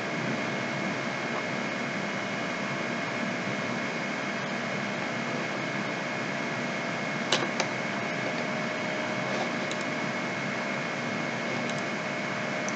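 Steady background hiss of a desk recording setup, with a few faint steady tones in it, broken about seven seconds in by two quick clicks a fraction of a second apart.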